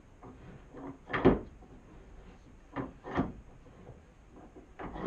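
Old Abernathy wooden bench vise being worked by hand: several wooden knocks and clunks as the jaw and handle are moved, the loudest about a second in.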